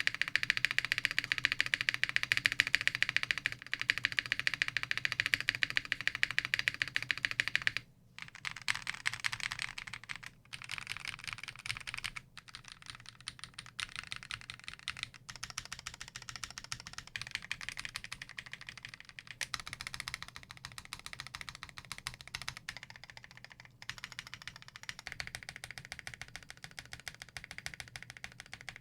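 Fast, continuous typing on a custom Tofu65 mechanical keyboard with lubed Akko CS Radiant Red linear switches in a polycarbonate plate and acrylic case. The typing is louder for the first eight seconds, then quieter, broken by several short pauses.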